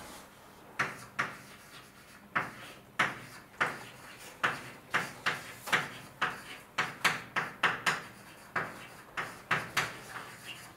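Writing on a board: a run of short strokes, about two a second at irregular spacing.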